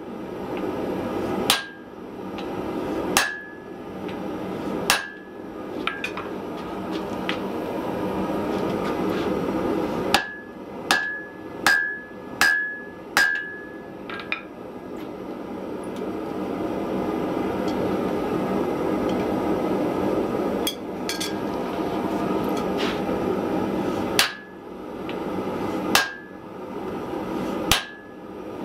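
Hand hammer striking a glowing block of wrought iron on a steel anvil, forging it to shape. About a dozen spaced blows, each a sharp clank with a brief ring, with a quick run of five in the middle and a pause after them. A steady rushing noise runs underneath throughout.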